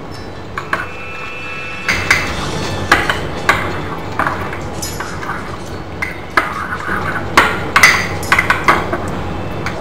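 A spoon stirring spice into yogurt in a bowl: irregular clinks and knocks of the spoon against the bowl, with a brief ringing clink near the start.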